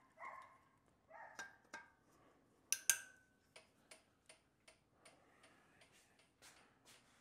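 Light metallic clicks and taps of hand tools and small parts on an ATV engine. Short squeaks in the first couple of seconds, one sharper ringing clink about three seconds in, then a string of faint ticks roughly three a second.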